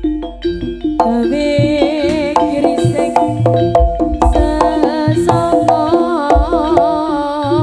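Live Jaranan ensemble music: hand drums beating a steady pattern with low drum strokes under a wavering melody with vibrato. After a thinner first second, the full ensemble comes back in about a second in.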